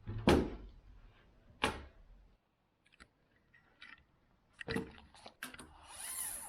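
A few sharp knocks and clatters, spaced irregularly, as of objects being handled or set down on a hard surface, with a short hiss near the end.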